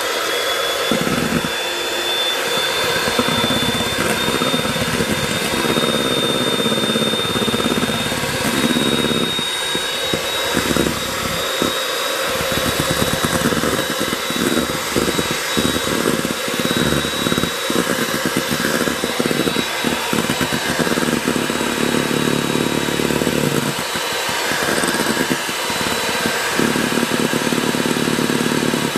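Electric hand mixer (Lord Eagle) running on high, its beaters whipping egg whites into meringue in a stainless steel bowl: a steady high motor whine over the fast churning of the beaters in the froth.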